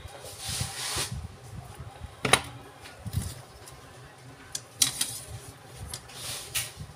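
A cloth rubbing over the metal body of a PH65 demolition hammer, with sharp metallic clicks and clacks as the hammer and its clamp-on side handle are handled. The loudest click comes a little over two seconds in, a few lighter ones about five seconds in, and more rubbing near the end.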